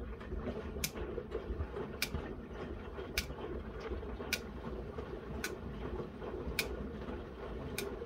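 Miele W1 front-loading washing machine drum starting to turn a heavy load of cottons. There is a steady low mechanical run with a sharp click a little more often than once a second.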